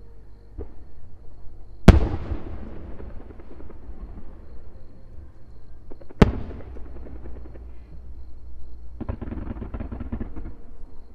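Aerial firework shells bursting. There are two loud booms, about 2 and 6 seconds in, each followed by a long rolling echo, and a fainter pop before them. Near the end comes a second and a half of dense crackling from crackle stars.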